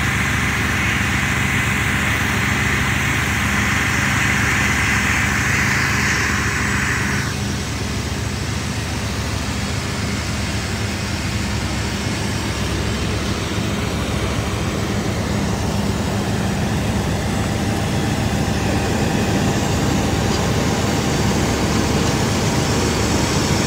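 Fire engine running steadily at the fireground, a constant low engine drone. Over it a loud hiss cuts off suddenly about seven seconds in.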